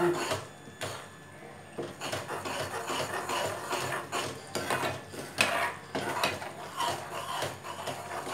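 A steel spoon scraping and knocking against an aluminium kadai as a thick rice-flour, coconut and sugar mixture is stirred, in quick uneven strokes a few times a second after a brief lull at the start. The mixture is being cooked down to burfi consistency, thick enough to pull away from the pan.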